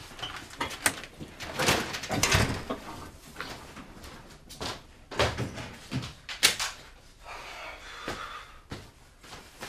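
Scattered knocks, clicks and rustling of objects being handled, with the loudest knock about six and a half seconds in.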